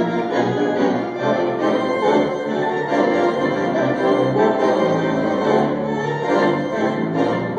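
Wurlitzer theatre organ playing a melody over held chords, with notes changing continuously.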